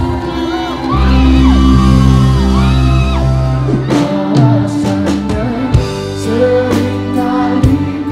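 Live pop band music through a PA: a singing voice over held keyboard and bass notes, with drum hits joining about halfway through.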